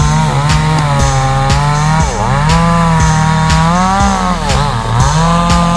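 Chainsaw running under load cutting wood, its engine pitch sagging and recovering and dipping sharply twice as it bogs in the cut. Music with a steady beat plays underneath.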